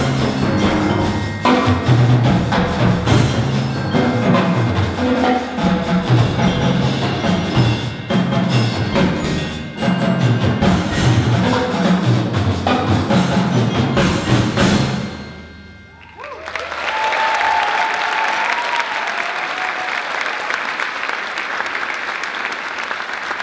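School percussion ensemble playing fast mallet music on marimbas with drums, ending about fifteen seconds in on a final stroke that rings and dies away. The audience then applauds steadily.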